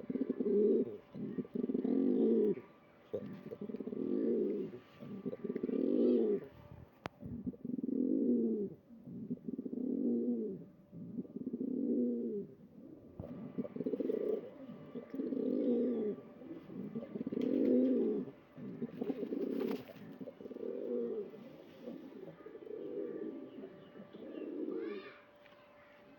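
Lal Jogi pigeons cooing: low, repeated coos, about one a second, running on almost without a break.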